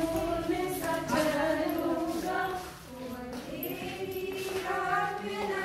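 A congregation singing a hymn together in long, held notes, with a short break a little before halfway.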